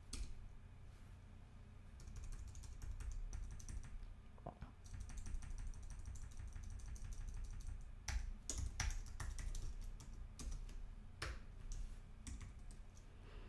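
Computer keyboard typing: keys clicking in short, irregular bursts, faint.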